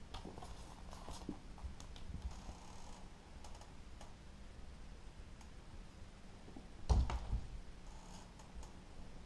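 Light clicks and taps of a cat's paws and claws striking wooden drawer fronts as it leaps at a wand toy, then one loud thump about seven seconds in as the cat lands on the top of the wooden chest.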